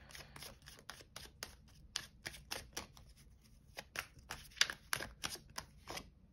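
A tarot deck shuffled by hand: a quick, uneven run of soft card snaps and slides that stops near the end.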